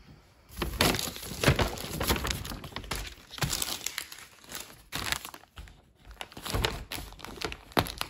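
Plastic packaging and a paper shopping bag crinkling and rustling as packages are lifted out and handled, on and off with short pauses.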